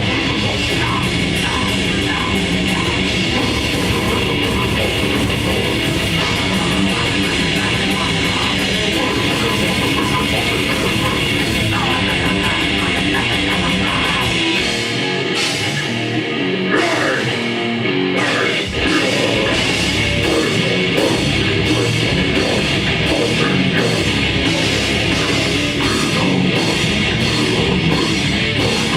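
Grindcore band playing live, with distorted guitar, bass and drums. Past the middle, the bass and drums drop out for about three seconds, then the full band comes back in.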